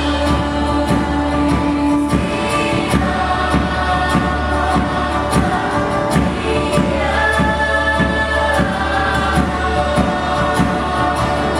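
A chorus of voices singing together over live music, with a steady percussion beat of about three strikes a second.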